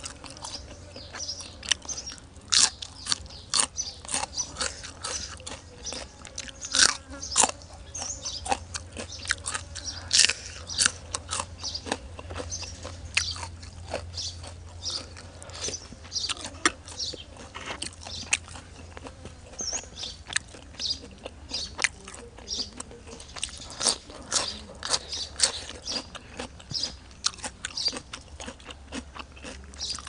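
Close-miked, open-mouthed eating of spicy Thai seafood salad: loud, wet chewing and lip smacking with crunchy bites, several short smacks a second.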